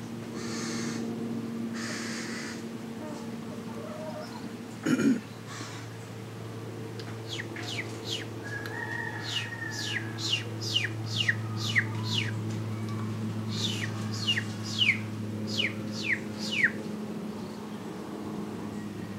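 A bird calls in two runs of quick, steeply falling whistled notes, about twenty in all, over a steady low hum. A single sudden loud sound comes about five seconds in.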